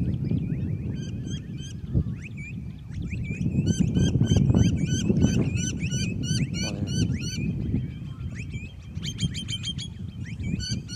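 A flock of birds calling: many short, hooked chirps overlapping, several a second, busiest from about three to eight seconds in. Wind gusts on the microphone underneath.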